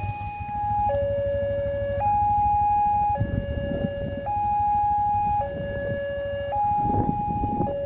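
Railway level-crossing electronic warning alarm sounding a two-tone high–low signal, each steady tone held about a second before switching. It signals that the barriers are down for an approaching train. A low rumble lies underneath.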